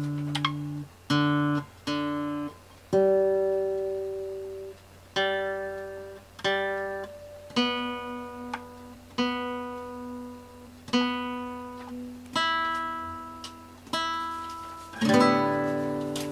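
Acoustic guitar playing a slow run of strummed chords, about one every second or so, each left to ring and fade, with a fuller, louder strum near the end.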